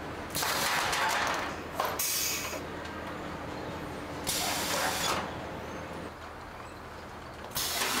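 Four short bursts of hissing, the first and longest about a second and a half, over a steady low hum.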